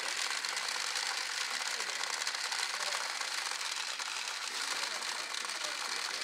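Pachinko machine in play: a steady, dense metallic clatter of steel balls being launched and rattling down through the pins.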